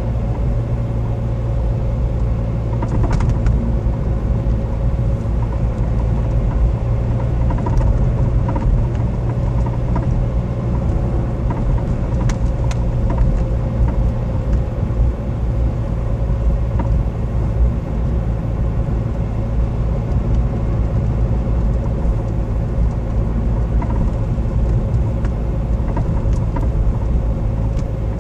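Renault Mégane II running with a steady low rumble and a constant mid-pitched whine over it, with a few faint clicks; this is the noise the owner finds strange.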